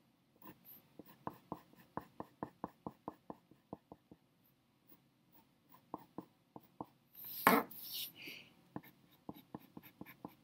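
Pencil hatching strokes scratching on paper: quick short lines at several a second, stopping and starting again. About seven seconds in comes a louder, longer rustle and bump, then a few more strokes.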